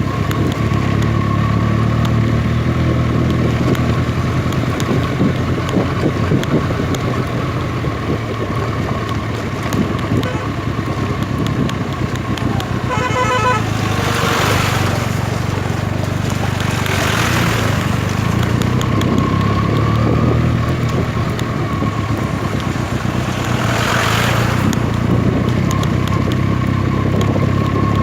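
Benelli TNT 300 parallel-twin motorcycle engine running steadily under way. Just past halfway a vehicle horn sounds in a quick run of short pulses. Rushing noise swells and fades a few times after it.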